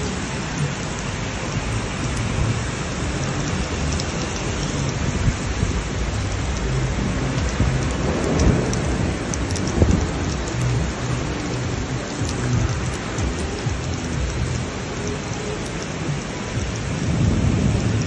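Heavy downpour on a street: a steady hiss of rain with a low rumble underneath. It swells about eight seconds in and again near the end.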